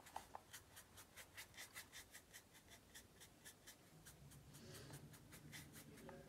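Faint, quick scratching of a dry bristle brush over canvas, about four or five strokes a second, as it blends oil paint in zigzag strokes.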